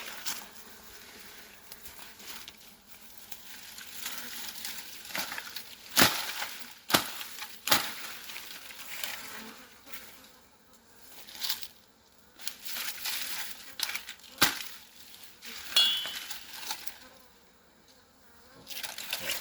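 Honeybees buzzing around an opened hive, with bursts of scraping and rustling and several sharp knocks as a knife clears the ground around the hive.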